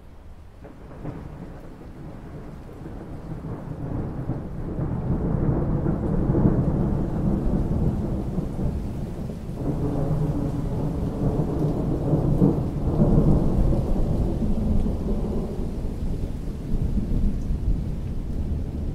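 Long rolling thunder that swells over the first few seconds and keeps rumbling in surges, over steady rain.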